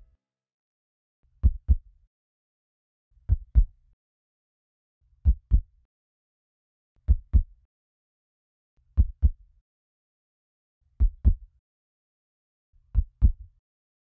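A slow heartbeat: a low double thump (lub-dub) repeating evenly about every two seconds, seven times, with silence between beats.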